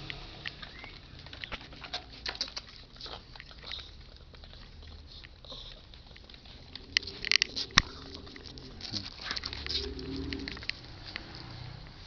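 Doberman puppies scrabbling about on a rubber mat, their paws and claws making many light clicks and taps, with a cluster of louder knocks about seven to eight seconds in.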